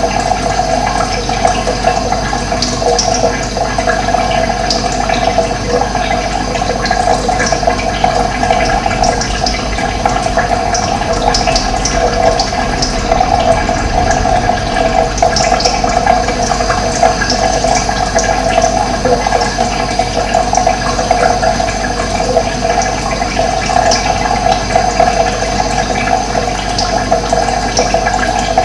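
Running water flowing steadily, with short high bird chirps scattered over it.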